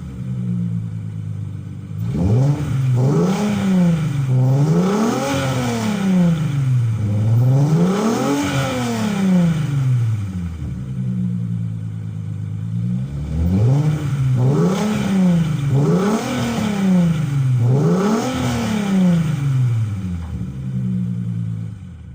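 VR6 engine with a straight 3-inch exhaust and a Magnaflow resonator idling, then revved up about ten times in quick blips, each rev rising and falling back to idle. There is a pause at idle midway, and the sound cuts off at the end.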